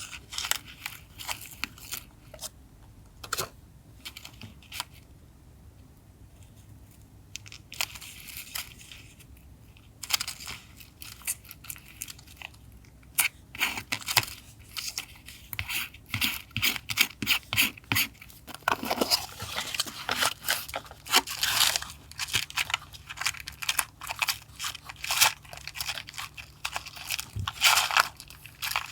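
Paper being handled for journal collage: irregular rustling, crinkling and light taps of paper pieces. There is a quieter, sparser spell about a third of the way in, and it gets busier and louder through the second half.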